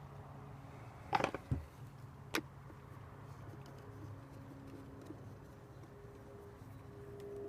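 A few sharp clicks and knocks from hands and tools working on the housing of a food waste disposer, loudest about a second in, over a faint steady hum.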